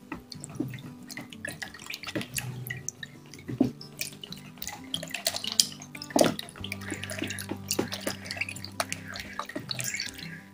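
Silicone spatula stirring a liquid mixture in a plastic measuring jug: wet sloshing with frequent quick scrapes and taps against the jug's sides, over background music.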